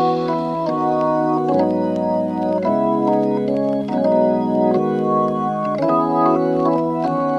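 Background instrumental music of sustained organ-like keyboard chords, each held for a second or so before the next.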